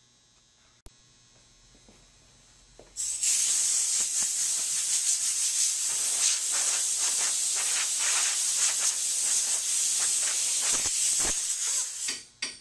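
Compressed air hissing in a strong steady blast that starts suddenly about three seconds in and runs for about nine seconds, breaking into a few short puffs at the end.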